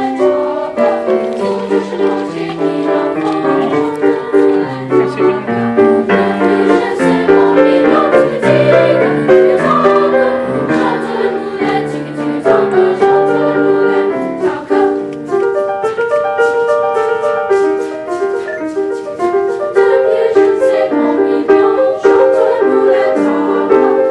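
A boys' choir singing a song together, continuously and at full voice.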